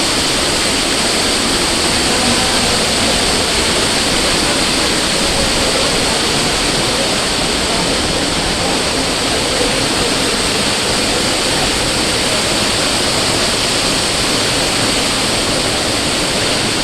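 Loud, steady rush of flowing water.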